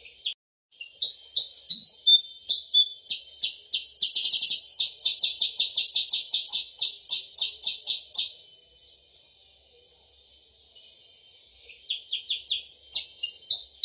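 Songbird lure call played back as a bird-trapping sound: a rapid series of short, high, sharp chirps that run into a fast trill about four seconds in, stop a little after eight seconds, and start again briefly near the end, over a steady high hiss.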